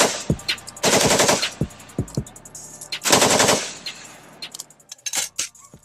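Three bursts of rapid machine-gun fire, a gunshot sound effect closing out a rap track. The last burst is about three seconds in, and faint scattered clicks follow near the end.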